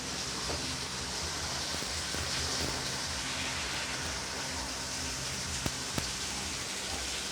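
Steady hissing background noise with two light clicks near the end.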